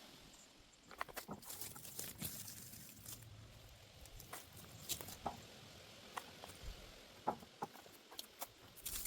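Potato vines and leaves rustling and crackling as they are pulled up and handled, in irregular short bursts.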